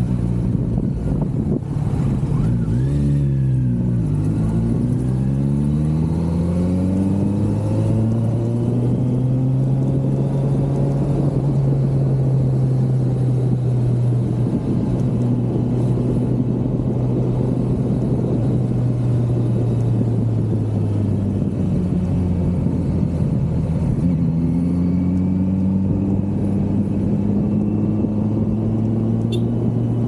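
Kawasaki Z900's inline-four engine running under way. Its note falls sharply and climbs again about three seconds in, then holds steady. It eases off around twenty seconds in and rises again as it accelerates near the end.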